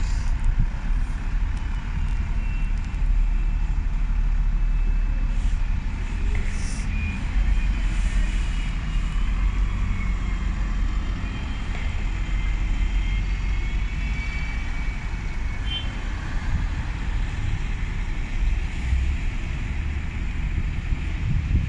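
Double-decker buses moving slowly around a bus station yard: a steady low engine rumble, with a high whine that rises and falls through the middle.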